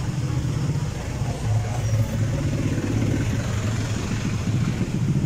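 A truck's engine idling, a steady low hum with a pulsing beat.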